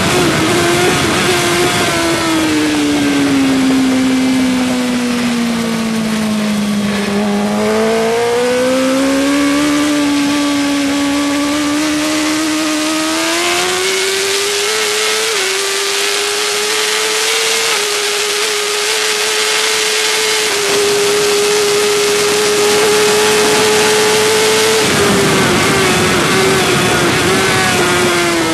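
Suzuki GSX-R1000 K5's inline-four engine at racing speed, heard on board with wind rush. The engine note falls over the first several seconds, climbs back up and holds high for a long stretch, then drops again near the end.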